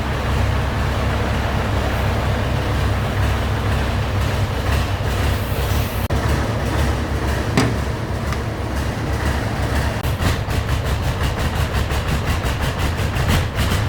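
Scania 143's V8 diesel engine running with a steady deep rumble. About ten seconds in, a rapid, even clatter joins it.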